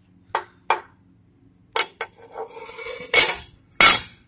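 Metal clicks and clanks as the steel and cast-iron parts of an old cabinet table saw are handled to open it up. Three light clicks come first, then a scraping rattle and two loud clanks near the end.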